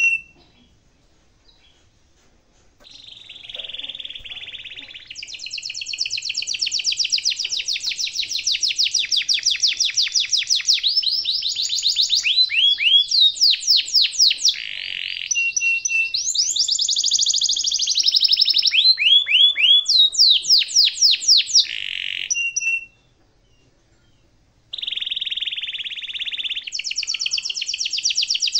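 Domestic canary singing long rolls: fast trills and runs of repeated down-sweeping notes, in phrases broken by two pauses of about two seconds, one just after the start and one late on.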